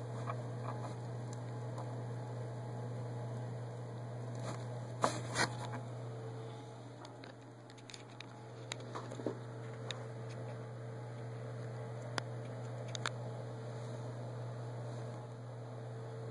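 Steady low electrical hum with scattered faint clicks and taps, the two loudest close together about five seconds in.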